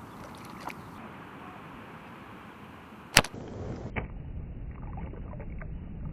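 A sharp snap about three seconds in, then a small object splashing into shallow water, with a few fainter splashes after it, over a steady background hiss.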